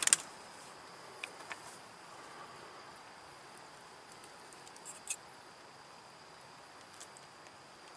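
Quiet evening ambience: a faint, steady, high insect trill over low background hiss, with a few faint clicks, the clearest about five seconds in.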